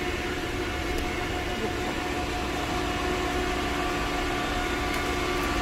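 Steady mechanical hum of store refrigeration and ventilation, a constant drone with a few unchanging tones.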